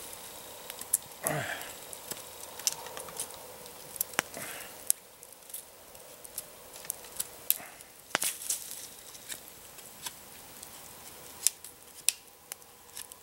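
Irregular sharp clicks and snaps over a faint hiss: a small campfire of damp wood crackling while a knife shaves and trims a branch into a skewer.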